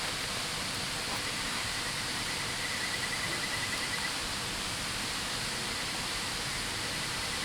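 Steady, even rush of a river flowing nearby, with a faint high trill for a couple of seconds partway through.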